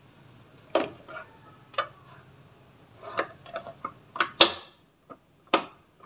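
Irregular plastic clicks and knocks, about a dozen, as the door (lid) switch of an Electrolux top-loading washing machine is handled and pressed into its seat in the machine's plastic top frame. The loudest knock comes about four seconds in.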